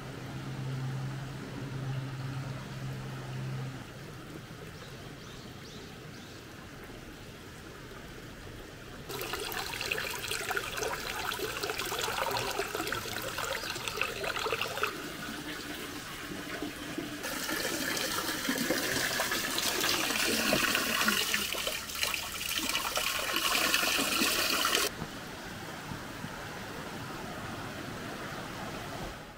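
Water splashing and trickling from a dragon-head spout into the stone basin of a shrine's hand-washing fountain. It comes in about nine seconds in, grows brighter around seventeen seconds, and drops away about twenty-five seconds in. A low steady hum is heard in the first few seconds.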